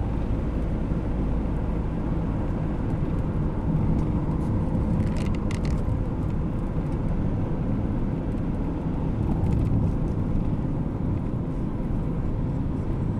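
Car interior noise while driving: a steady low rumble of engine and tyres on the road, heard inside the cabin, with a brief light rattle about five seconds in.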